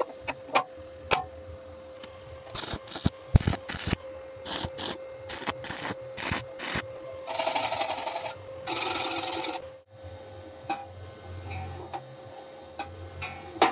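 Metalworking with hand tools: a run of sharp taps and knocks, then two rasping strokes about a second long each, followed by a few lighter ticks.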